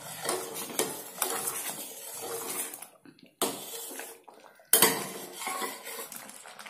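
Steel ladle stirring thick milky payasam in a stainless steel pan, scraping and clinking against the pan's sides and bottom, with a sharp clack a little past halfway.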